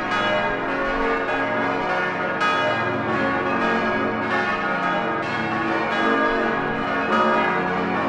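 The bells of the Dom in St. Blasien ringing a full peal for Mass: several bells sound together, with their strokes overlapping in a continuous, uneven ringing.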